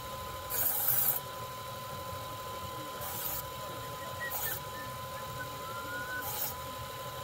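Electric belt grinder running with a steady hum, with four short grinding passes of a steel knife blade against the abrasive belt. The motor's pitch dips slightly under each pass.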